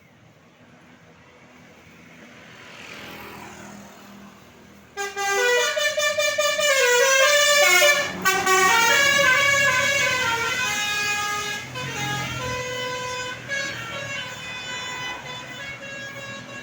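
A tour bus approaching, then about five seconds in a Basuri telolet horn sounds: a loud multi-tone musical air horn playing a stepping tune. The tune carries on and grows gradually fainter.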